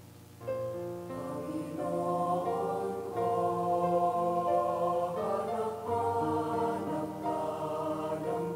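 Choral music starting about half a second in, with long held chords.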